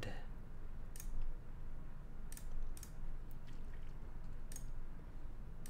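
Several scattered computer mouse clicks over a steady low room hum.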